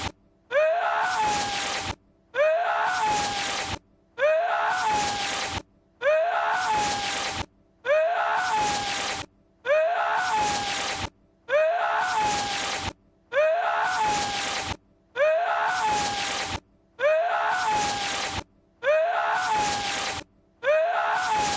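Lord Voldemort's voice clip, a breathy, sneeze-like cry, looped over and over. Each cry lasts a little over a second and is followed by a brief silence, repeating about every second and a half.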